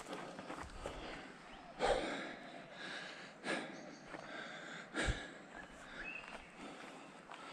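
A person breathing hard and out of breath after a steep uphill climb, with heavy breaths about every second and a half.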